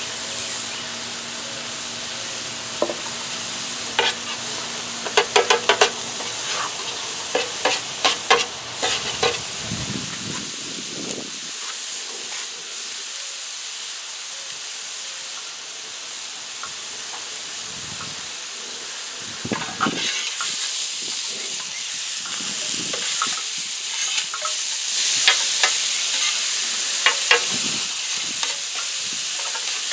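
Cauliflower rice, chicken and eggs sizzling steadily on a hot flat-top griddle, with the sharp clicks and scrapes of a metal spatula on the griddle plate. The sizzle grows louder and busier in the second half as the eggs are worked into the rice.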